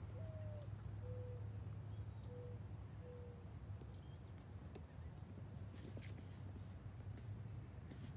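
Quiet outdoor ambience: a steady low hum, with four soft cooing notes in the first few seconds, the first a little higher and falling, and faint high chirps scattered throughout.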